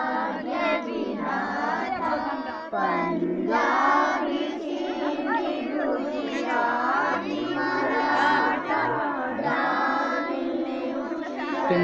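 A large group of children singing together in unison, many young voices at once.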